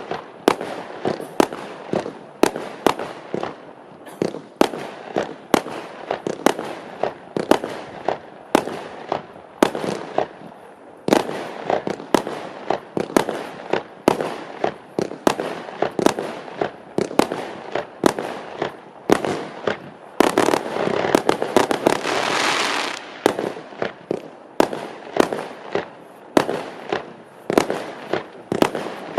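Fireworks firing shot after shot: a rapid, uneven string of sharp bangs, one to three a second. About twenty seconds in comes a dense, louder stretch of about three seconds.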